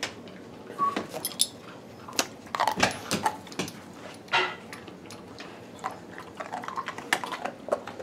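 Dogs crunching and chewing hard Milk-Bone dog biscuits: a run of irregular crisp crunches and clicks.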